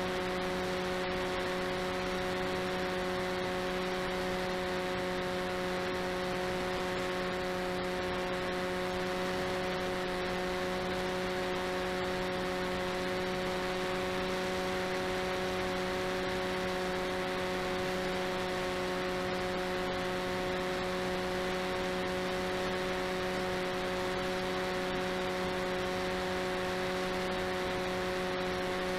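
RCTimer 5010 630KV brushless outrunner motor driving the delta wing's propeller at steady throttle, heard from the onboard camera: an even whine with several overtones that holds one pitch throughout. Under it runs a steady rush of wind.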